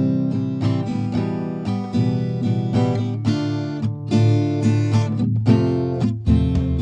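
Music led by a plucked acoustic guitar, a steady run of picked notes.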